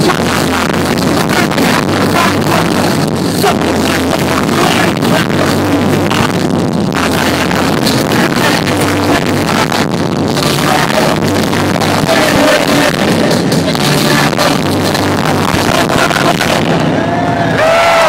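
Punk rock band playing live, with drums, electric guitar and bass, heard loud and muddy from within the audience. Near the end, whistles rise from the crowd.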